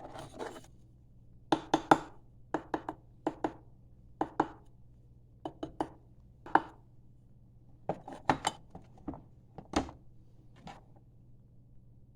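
A piece of brass tapping against a casting pattern set in green sand, rapping it to loosen it for pulling out. Sharp light taps at an uneven pace, often in quick twos and threes, with a faint steady hum underneath.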